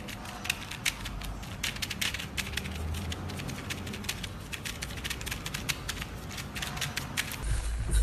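Rapid, irregular sharp clicking, several clicks a second. About half a second before the end it gives way to a low rumble.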